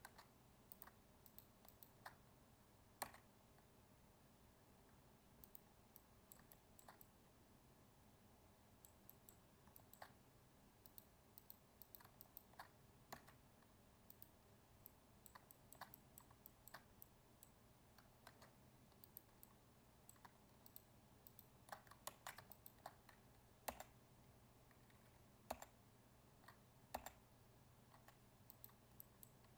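Faint, irregular clicks of a computer mouse and keyboard being worked, sometimes singly and sometimes in quick clusters, over a low steady hum.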